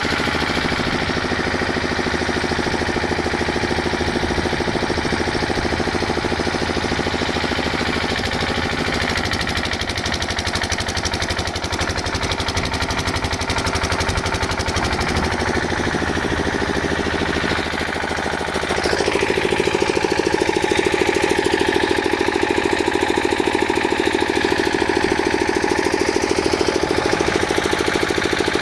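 Arc welding on a steel gate: a steady, dense crackle over a machine hum, getting louder about nineteen seconds in.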